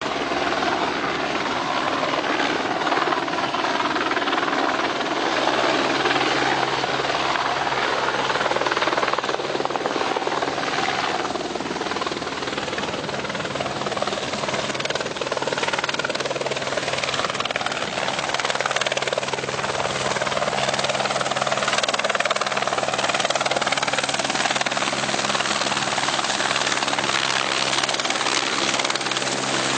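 Helicopter running steadily: a continuous drone of engine and rotor noise with a low steady hum beneath it.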